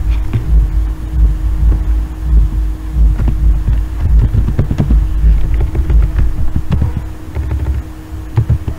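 Keystrokes on a computer keyboard picked up close by the microphone, heard as uneven low thumps and short clicks, over a steady electrical hum.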